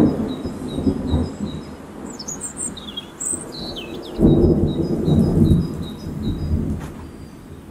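Deep rolling rumble of thunder that fades, then swells again suddenly about four seconds in before dying away. Birds call over it: a run of short, evenly repeated chirps and a few swooping whistles.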